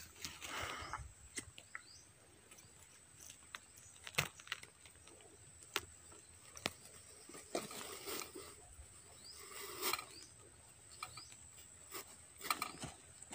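Quiet handling sounds of a metal beekeeper's smoker being loaded with dry fibre tinder: scattered small clicks and taps with a few soft rustles.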